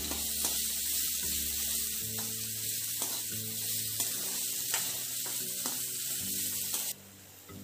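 Diced potatoes with fennel seeds sizzling in hot oil in a steel kadai, stirred with a metal spatula that scrapes and clicks against the pan now and then. The sizzle cuts off suddenly shortly before the end.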